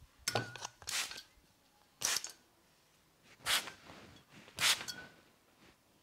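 About five short hissing spritzes from a hand-pump water spray bottle, spaced roughly a second apart.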